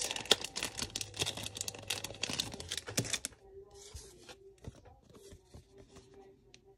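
Thin plastic packaging crinkling and tearing as a pack of trading-card sleeves is opened and a card is slipped into a sleeve. The crackling is dense for about three seconds, then thins to scattered faint crinkles.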